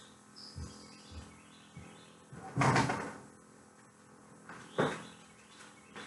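A few soft knocks, then a louder rustling thump about two and a half seconds in and a smaller one near five seconds, with a faint high chirp about half a second in.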